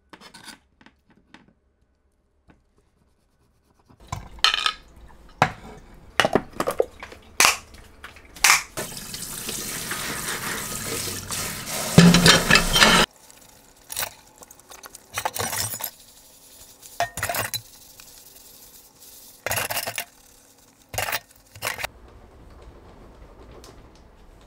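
Washing up at a kitchen sink: dishes clattering and a brush scrubbing, with the tap running for several seconds in the middle before it cuts off suddenly. Scattered knocks and rubbing follow, and faint clicks of a knife and fork on a cutting board come at the start.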